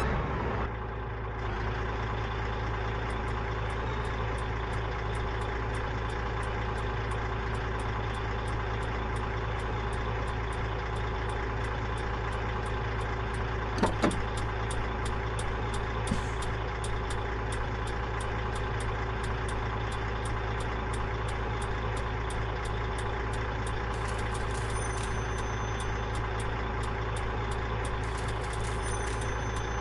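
Mercedes-Benz LS1634 truck's diesel engine idling steadily, with a faint regular high ticking about twice a second and a single click about halfway through.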